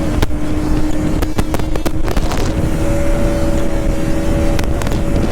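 Bajaj Pulsar NS 200's single-cylinder engine running at a steady pitch while riding, over heavy low wind rumble on the microphone, with a few sharp clicks.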